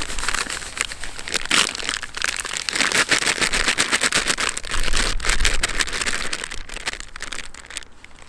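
Foil groundbait packet crinkling and rustling as dry groundbait is shaken out of it by hand. The crinkling is dense and continuous, getting quieter near the end.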